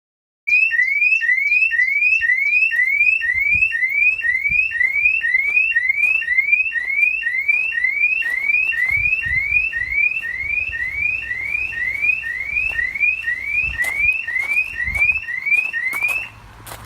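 Car alarm siren sounding a fast repeating rising whoop, about two a second. It starts abruptly about half a second in and cuts off just before the end.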